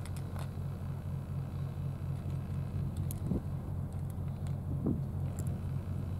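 Steady low engine hum of an idling motor, with a few faint short clicks over it.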